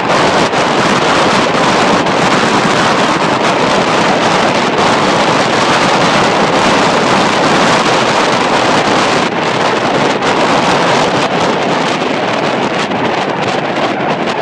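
Steady, loud rush of wind over the microphone at riding speed, mixed with the roll of longboard wheels on asphalt.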